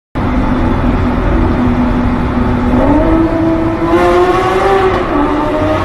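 Lamborghini engine accelerating, heard from inside the cabin. Its note climbs in pitch about three seconds in, dips briefly about five seconds in, and climbs again.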